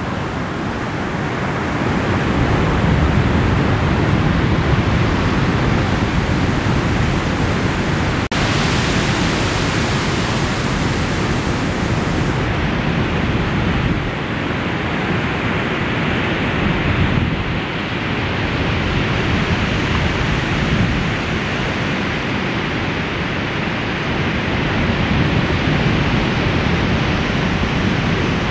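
Steady rushing noise of breaking ocean surf, with no distinct separate crashes; its tone shifts a little a couple of times.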